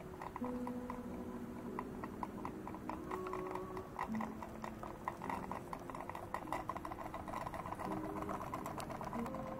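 Model steam engine after Henri Giffard's 1852 airship engine (10 mm bore, 20 mm stroke), fed by an alcohol-fired copper boiler, running and turning its large propeller, with a rapid, even ticking. Held tones shift pitch every second or so underneath.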